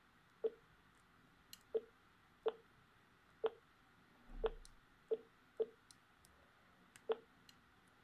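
Key clicks from an INQ 1 slider phone as its navigation pad is pressed to move through menus: about eight short, sharp clicks at irregular intervals, roughly one every second or less.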